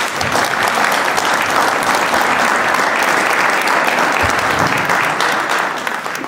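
Audience applauding, a dense clapping that starts at once and fades out near the end.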